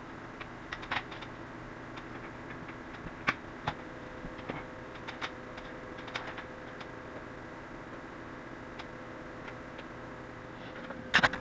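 Irregular light clicks and taps of an LED strip being handled and pressed onto a metal ceiling lip, over a faint steady hum, with a couple of sharper knocks near the end.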